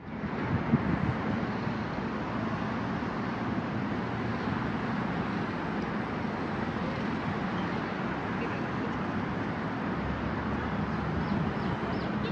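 Steady outdoor city background noise with distant road traffic, even and unbroken.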